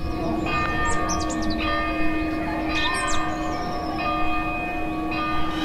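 Church bells ringing: several strikes, each leaving long overlapping ringing tones. Small birds chirp briefly about a second and about three seconds in.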